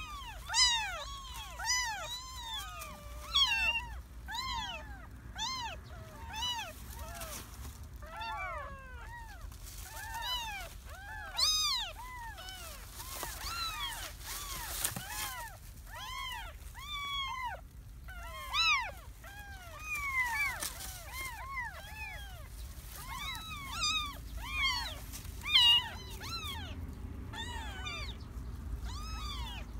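A litter of very young kittens mewing, many short high-pitched calls that rise and fall in pitch, coming one after another and often overlapping.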